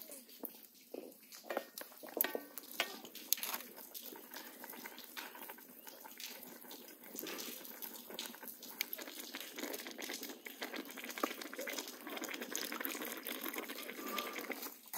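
Rice pilaf simmering and bubbling in a large kazan over a wood fire, a steady crackly bubbling. There are a few sharper clicks about two to three seconds in.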